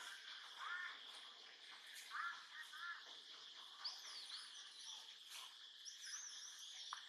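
Faint forest ambience: a steady high insect drone, with short chirping calls twice in the first few seconds and warbling bird song in the second half.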